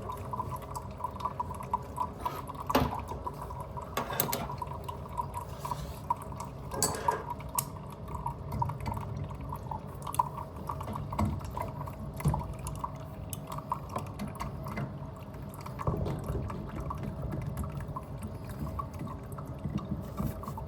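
Water dripping and trickling from an opened plumbing line that is draining, with a few sharp clicks of a tool on the metal fitting.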